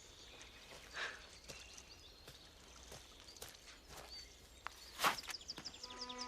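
Quiet outdoor ambience with scattered light footsteps and rustles, one sharp knock about five seconds in, and a bird chirping in quick repeated high notes near the end.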